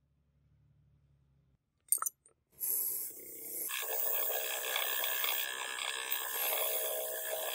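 Bench grinder's wire wheel brushing a small metal motorcycle part clean: a steady, harsh scratching noise that starts about two and a half seconds in and grows louder about a second later as the part is pressed harder against the wheel. A short metal clink comes just before it.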